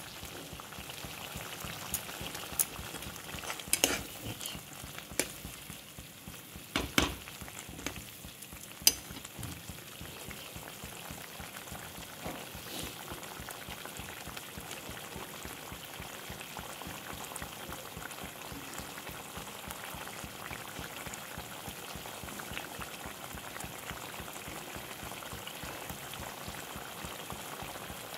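Matar paneer gravy bubbling at a steady boil in a pan, a constant hissing bubble. In the first nine seconds or so a spatula knocks and scrapes against the pan several times.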